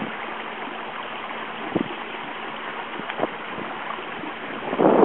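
Water rushing steadily along the hull of a sailing proa under way at about 5 knots, with a few short slaps of small waves against the hull. Near the end, wind buffets the microphone much louder.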